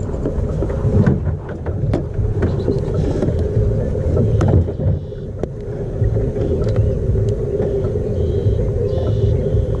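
A boat motor hums steadily over a low wind rumble on the microphone. Scattered clicks and knocks come from hands handling a towel-wrapped fish and a plastic cull tag.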